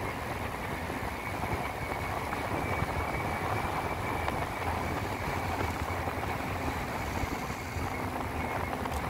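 Steady rushing of wind over the phone's microphone, with tyre noise on asphalt, as a bicycle coasts fast downhill.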